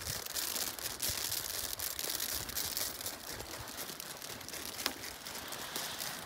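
Faint outdoor rustling hiss with scattered light crackles and one sharper tick about five seconds in.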